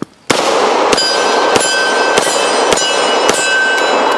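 Smith & Wesson Model 547 9mm revolver fired six times in quick double-action succession, a little under two shots a second, with steel targets ringing after the hits. The ringing fades after the last shot.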